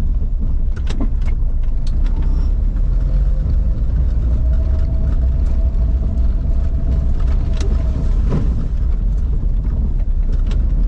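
Inside a car driving slowly over cobblestones: a steady low rumble of engine and tyres on the paving stones, with scattered sharp knocks and rattles.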